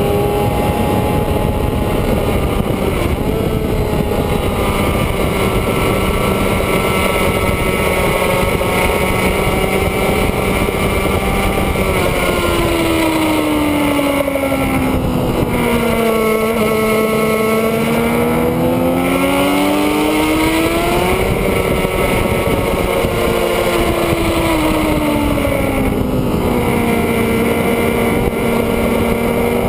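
Inline-four sportbike engine heard onboard at track speed, with wind rush. Its pitch holds steady at first, then in the second half drops and climbs again twice as the revs fall and rise.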